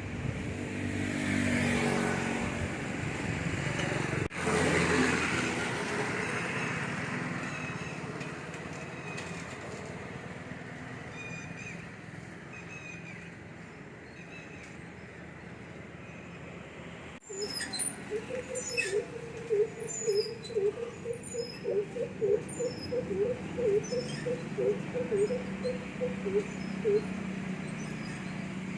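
A motor vehicle passes in the first few seconds, then fades into steady background traffic. Birds chirp over it, and in the last third one bird gives a fast run of repeated lower notes, about two a second, among higher chirps.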